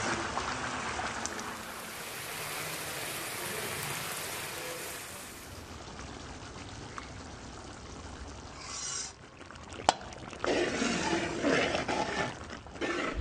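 Daal curry bubbling in a karahi while ingredients are poured in: a steady watery hiss of liquid at a simmer. A sharp click comes a little past the middle, and louder uneven sounds near the end.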